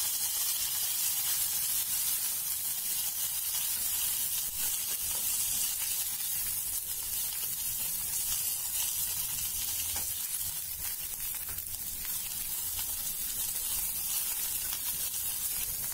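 Hot oil sizzling steadily in an aluminium pan as a tempering of mustard seeds, dal, dried red chilli and curry leaves fries, with light scraping of a wooden spatula stirring it.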